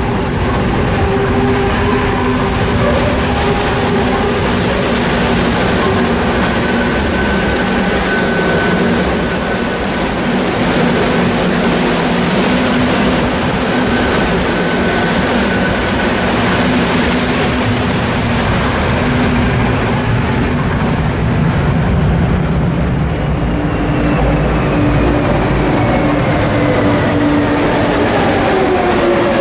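Madrid Metro electric trains running through underground stations: a dense rumble of wheels on rail with a steady motor whine, and in the last few seconds a train's whine falling in pitch as it slows.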